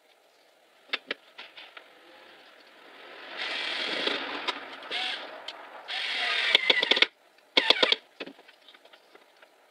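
Small cordless screwdriver driving screws through a metal rail into a wooden leg, in two short runs about three and a half and six seconds in, the second ending in a few sharp clicks. Clicks and knocks of the parts being handled come before and after.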